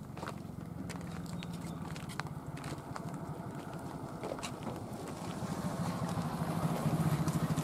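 A motor engine running with a steady, pulsing low hum that grows louder over the last two seconds, with scattered footsteps on dry dirt.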